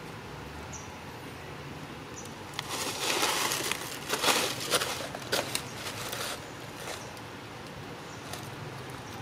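Rustling and scratching noise for about four seconds, starting about two and a half seconds in, with sharp crackles in it, over a faint steady hiss.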